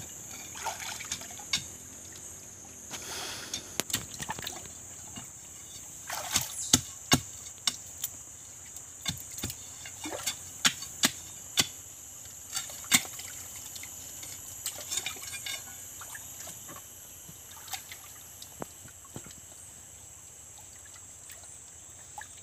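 A metal bar knocking and scraping against stones and gravel in a muddy pit, sharp irregular clacks that come thick through most of the stretch and thin out near the end, over trickling water and a steady high hiss.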